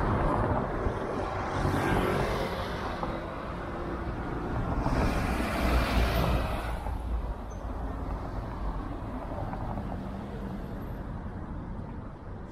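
Street traffic over a steady low rumble, with vehicles passing: one swell about two seconds in and a louder pass around five to seven seconds in.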